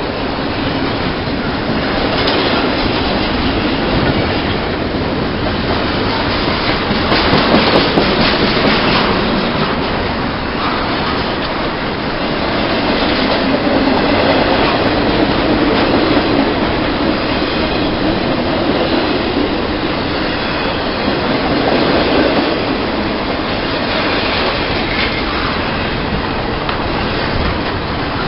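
A train passing at close range: continuous noise of steel wheels running on the rails, with a cluster of sharp clicks about seven to eight seconds in.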